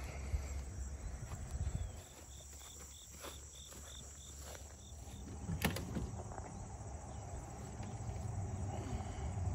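Low rumble of wind and handling noise, with a short run of high, evenly spaced insect chirps, about four a second, in the middle, and a single sharp knock a little past halfway.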